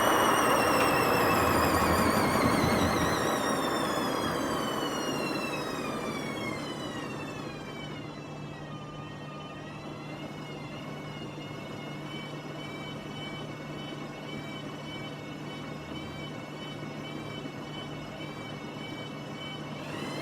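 WMA50 washing machine running down from a spin: the motor and drum whine falls steadily in pitch and the rumble of its worn drum bearings fades over about eight seconds. It settles to a faint steady hum, and near the end the whine starts to rise again as the drum speeds up.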